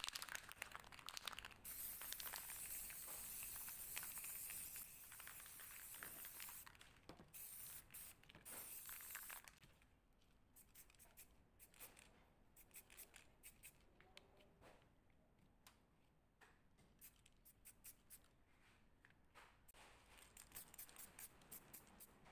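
Aerosol spray paint can hissing in several long bursts, then a crumpled wad dabbed again and again against foil-wrapped pieces, making a quick run of crinkly taps from about ten seconds in.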